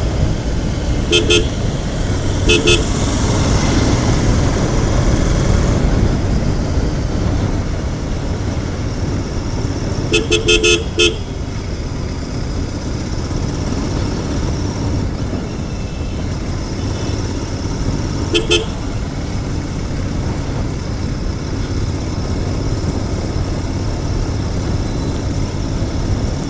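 Royal Enfield Continental GT 650's parallel-twin engine running on its stock exhaust while riding, with wind rush. Short horn beeps cut in about a second in, again near three seconds, as a quick run of beeps around ten seconds, and once more near eighteen seconds.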